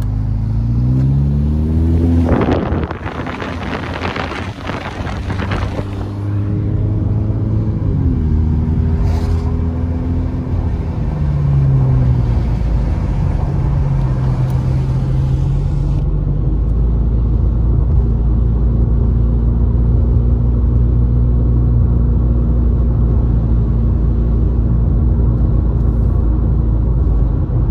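Car engine and road noise heard from inside the cabin, with tyres on wet pavement. The engine pitch rises at first and falls twice as the car changes speed. A louder rush of noise comes about two to six seconds in, and the engine settles into a steady low drone for the second half.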